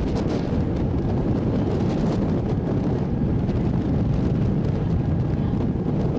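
Wind buffeting the microphone on a moving ferry, over the steady running of the boat's engine.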